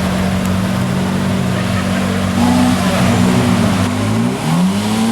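Supercar engine in a tunnel, running with a steady low note for about two seconds, then blipped with the pitch jumping up and down, and revved up with a rising note near the end.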